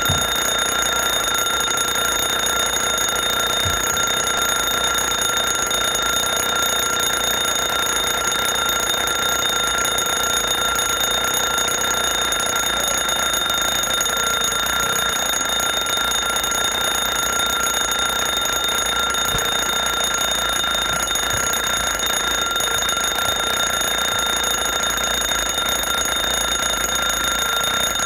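Alarm clock ringing steadily without a break, a high, unchanging ring.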